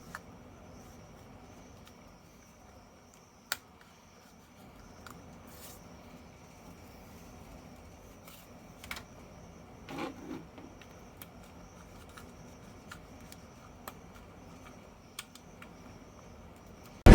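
Quiet room tone with a faint, thin high whine, broken by a few isolated small clicks and taps, the most noticeable about three and a half seconds in and a soft double knock about ten seconds in.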